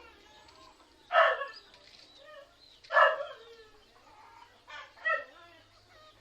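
An animal calling: three short, loud calls that fall in pitch, about two seconds apart, then a softer pair of calls near the end.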